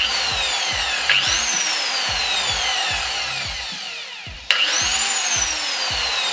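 DWT WS-125L angle grinder running free on a test run after repair: a high whine that jumps up sharply about a second in and then sinks slowly, and does the same again near four and a half seconds.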